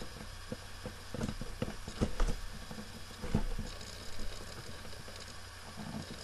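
Scissors and hands working at a taped cardboard shipping box: irregular clicks, scrapes and rustles, with a steady low hum underneath.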